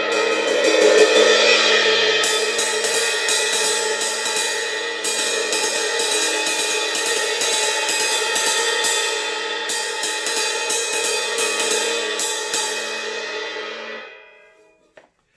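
An 18-inch Zildjian A Uptown ride cymbal, dark in tone, rings out from a hit. About two seconds in it is played in a steady stick pattern, the wash building under the strokes, and it fades away near the end.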